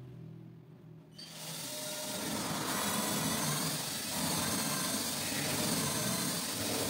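A power tool starts about a second in and runs steadily, building up over a second and then holding a continuous mechanical whir.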